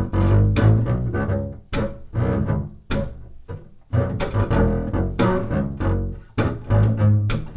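Double bass playing a rhythmic hip-hop-style groove: short low notes with sharp percussive attacks, broken by a brief pause about three and a half seconds in.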